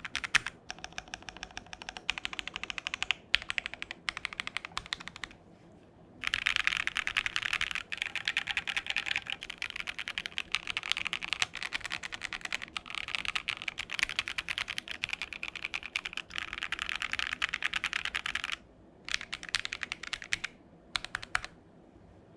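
Typing on a Keychron Q1 aluminium-case, gasket-mount mechanical keyboard, modded with PE foam under the PCB and the thick stock case foam removed: a typing sound test. The first few seconds are patchy with pauses, then a fast, unbroken run of keystrokes from about six seconds in to near the end, followed by a few short bursts.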